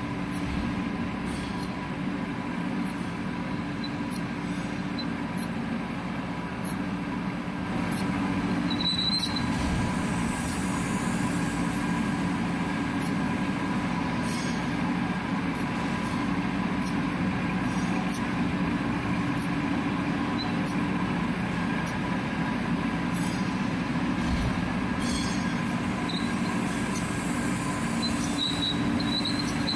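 Metal lathe running with a 30 mm drill bit boring into a spinning metal workpiece: a steady machine hum and cutting grind with a faint whine, scattered light clicks, and short high squeals from the cut about nine seconds in and again near the end. The sound grows a little louder about eight seconds in.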